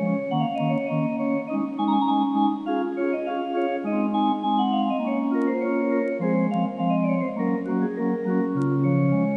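Organ playing slow, sustained chords, the notes held and changing every second or so.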